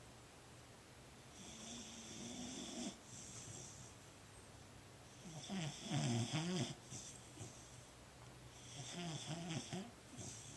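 Boxer dog snoring: three snores a few seconds apart, the middle one the loudest.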